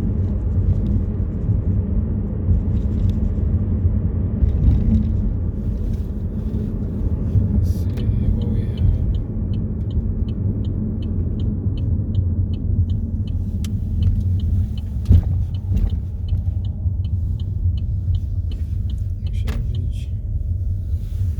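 Road noise of a moving car: a steady low rumble throughout. From about nine seconds in to near the end, a regular high ticking runs at about two to three a second, and there is one sharp knock about fifteen seconds in.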